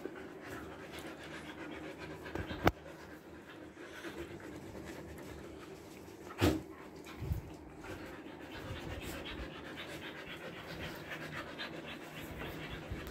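Siberian husky panting fast and steadily, heat panting that keeps up even in an air-conditioned room. Two sharp knocks break through, one a few seconds in and one about halfway.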